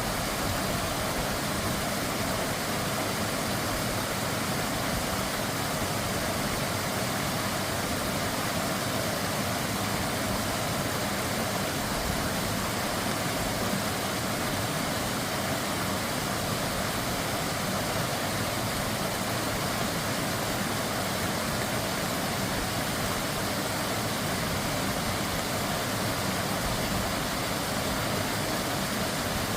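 Mountain valley stream, its water rushing in a steady, unbroken noise.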